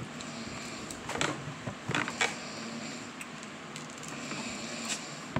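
A few short clicks and crackles of close handling noise over steady room hiss, bunched in the first half.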